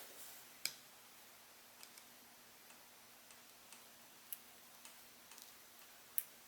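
Faint, irregular small clicks and ticks from hand soldering work, a handful over several seconds with the sharpest about half a second in, past four seconds and near the end.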